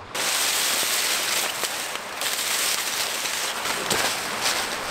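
Dry leaves and twigs on the forest floor crackling and rustling under a person lying down on them, over a steady rushing hiss, with a few sharp ticks.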